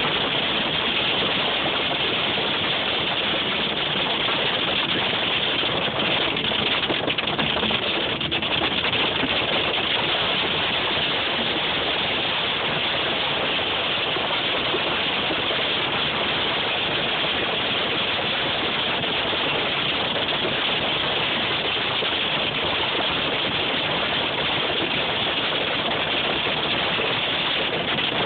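Very heavy hail pelting a car's roof and windshield without let-up, heard from inside the cabin as a dense, steady noise.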